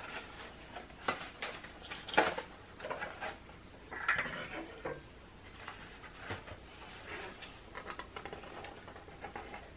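A flat-pack cardboard box being opened and handled: scattered light taps, scrapes and rustles of cardboard and paper.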